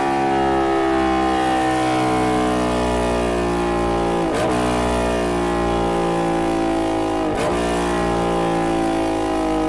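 Motorcycle with a MOJO 200 exhaust running under way, its exhaust note drifting slowly lower. The note dips sharply and picks up again twice, about four and a half and seven and a half seconds in.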